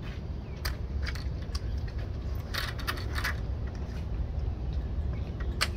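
Scattered light metallic clinks and taps as hand tools in a leather tool belt shift and are handled, a few at a time, over a steady low rumble.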